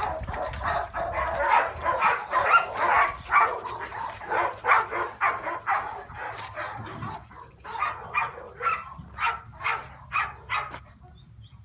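Dog barking: a rapid run of short barks, several a second, that turn into more spaced single barks in the second half and stop shortly before the end.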